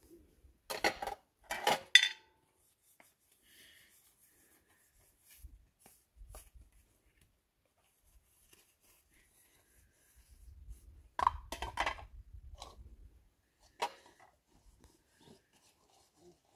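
Hand-washing dishes: plates and a metal pot clinking and clattering against each other in sharp bursts, a loud pair about a second in and another cluster past the middle, with faint handling noises in between.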